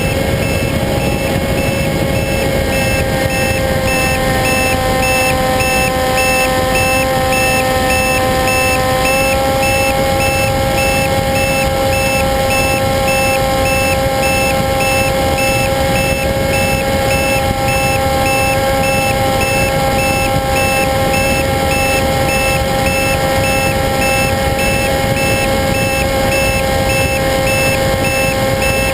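RC model airplane's motor running at a steady high pitch over rushing airflow; the pitch steps up slightly about nine seconds in.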